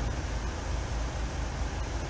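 Steady low rumble and hiss of a car's cabin noise.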